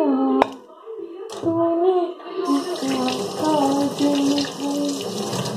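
A voice hums a slow tune with long held notes. About half a second in there is a single sharp knock, and from about two and a half seconds in a kitchen tap runs water with a steady rush under the humming.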